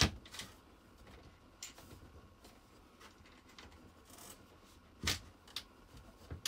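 Clicks and knocks of a TV wall-stand's locking clip and the TV's clip-on plastic mounting plate as hands push the clip up and seat the TV, with light rubbing between them. A sharp click comes right at the start and a few more scattered clicks about five seconds in.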